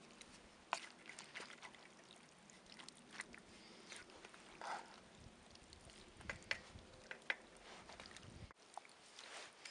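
Wooden spoon stirring thick chili in a cast iron Dutch oven: faint wet stirring with scattered light clicks and knocks of the spoon against the pot.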